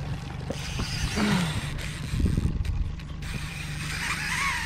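Fishing reel being wound in, a ratcheting mechanical whir, over the steady low hum of an idling boat motor.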